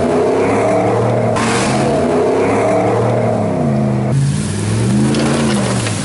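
Ram pickup truck engines revving under load, pitch climbing and falling, with tyres spinning in snow and mud. The sound jumps abruptly about a second in and again about four seconds in.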